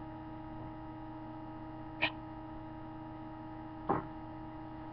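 Steady electrical mains hum made up of several tones, broken by two short sharp sounds about two seconds and four seconds in.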